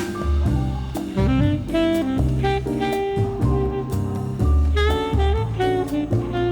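Background jazz music: a saxophone-like melody over bass and a steady drum beat.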